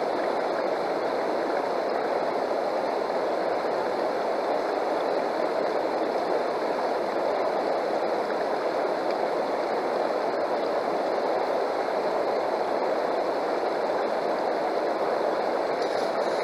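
Steady rush of shallow river water flowing over rocks and through a metal sluice box set in the current.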